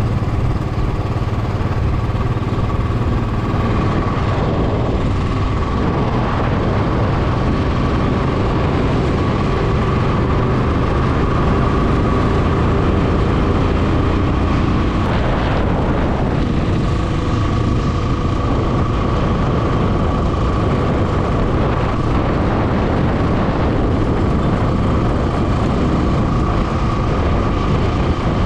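Royal Enfield motorcycle under way at a steady speed: its engine runs steadily with road noise. A brief louder rush comes about halfway through.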